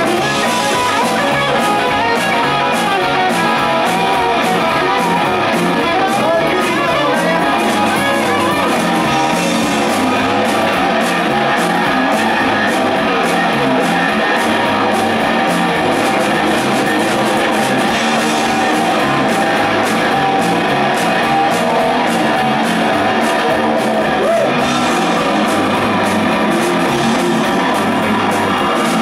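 Live rock band playing loudly: electric guitars over bass guitar and a drum kit with steady cymbal beats.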